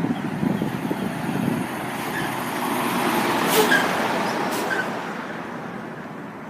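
A truck driving past on the road: its engine and tyre noise swell to a peak a little past the middle and then fade away.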